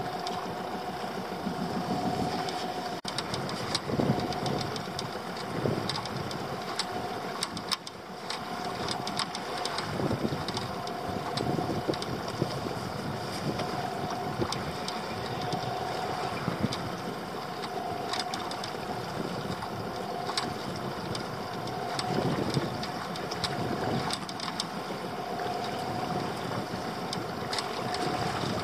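Small fishing boat's engine running steadily: a continuous hum that swells and fades about every two seconds.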